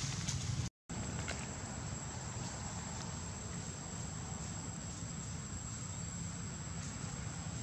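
A steady, high-pitched insect drone over outdoor background noise with a low rumble underneath. The sound drops out completely for a moment about a second in.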